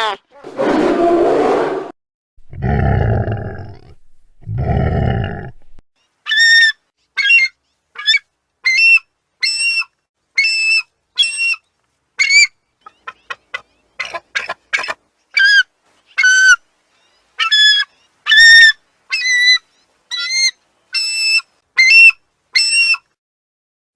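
Bald eagle calling: a long series of short, high-pitched piping notes, about one a second with some quick clusters. It is preceded by a few low, noisy bursts in the first five seconds.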